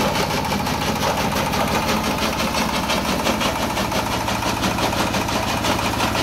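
ZS1125 single-cylinder stationary diesel engine running steadily with a rapid, even beat as it drives a small jaw crusher that is breaking stone.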